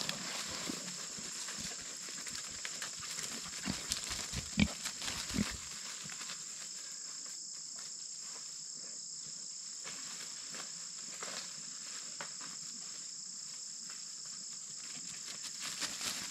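Steady high-pitched insect drone, with a few short low pig grunts about four to five seconds in.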